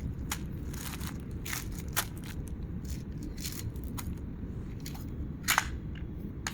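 Miniatures kit packaging being handled for an unboxing: scattered crinkles and crackles, about a dozen, over a steady low rumble.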